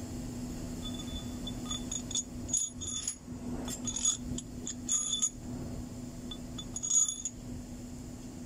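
Metal tools and engine parts clinking and ringing as a mechanic works on the exposed top of a truck diesel engine, in a string of short knocks with the loudest about four, five and seven seconds in. A steady low hum runs underneath.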